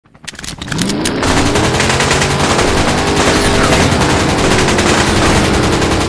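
Loud rapid-fire rattling sound effect of a logo intro: a few separate cracks, then from about a second in a dense, fast rattle with a rising whine underneath.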